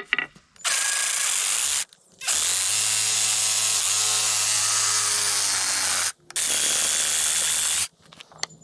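A power saw cutting through the protruding end of a new wooden sledgehammer handle, running in three steady bursts with brief pauses between them.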